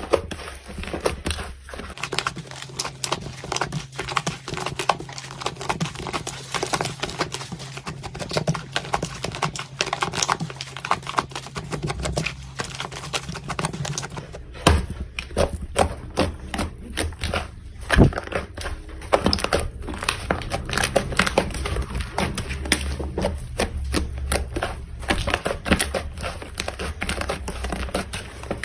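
Hands squeezing, poking and stretching slime: a dense run of sticky clicks, pops and crackles. The texture changes twice, about two seconds in and about halfway through, as one batch of slime gives way to another.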